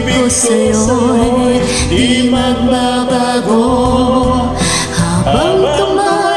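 Karaoke duet of a Tagalog love ballad: a man and a woman singing over a backing track, holding and sliding between long notes.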